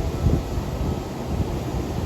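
Wind buffeting the microphone: an uneven low rumble that swells and eases in small gusts.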